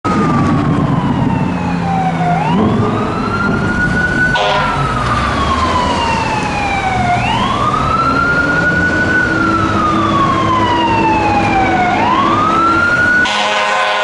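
Fire truck's electronic siren on a slow wail, rising quickly and then falling slowly about every five seconds, over the rumble of the truck and traffic. Near the end a steady air-horn blast starts.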